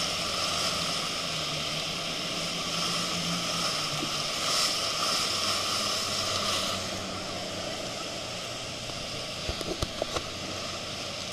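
Steady roar of the Iguazu Falls and churning water, with a speedboat's engine droning underneath. The roar eases somewhat about seven seconds in, and a few short knocks come near the end.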